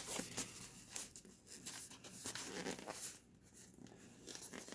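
Cardboard product packaging being handled and opened by hand: scattered rustles, scrapes and light taps, with a short lull about three seconds in.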